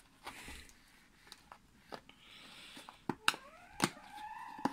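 A cardboard box being handled and opened: light rustling, then a few sharp taps and knocks about three seconds in. Near the end a pitched tone rises and then holds steady.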